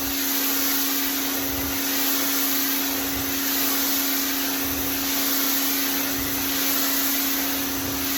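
Pressure washer running steadily: a constant motor hum under the hiss of the water jet spraying an outdoor rug, swelling and easing slightly as the wand sweeps.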